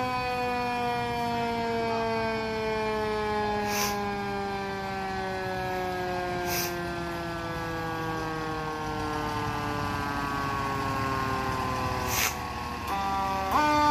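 Fire engine's mechanical siren coasting down in one long, slowly falling whine, then pushed back up in pitch twice near the end. Three short hisses come along the way.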